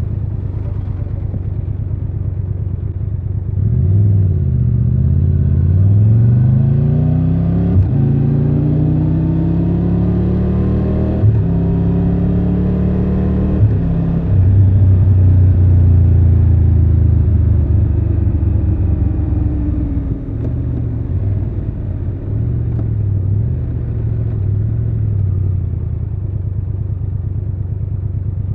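Triumph Tiger 1200 Rally Pro's inline three-cylinder engine pulling away from low revs about three and a half seconds in, rising in pitch through upshifts with short breaks near eight, eleven and fourteen seconds. It then holds a steady cruise and eases off and back on in the last third.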